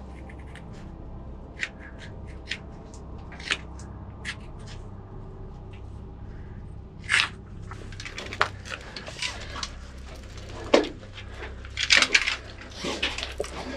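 A stone scraping and tapping against a rock wall in short, sharp strokes as a name is scratched into it. From about halfway, denser scuffing and crunching of footsteps on loose rock and gravel.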